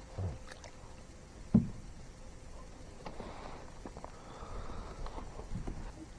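Handling noises aboard a fishing kayak: scattered small knocks and faint water sounds, with one loud low thump on the hull about a second and a half in.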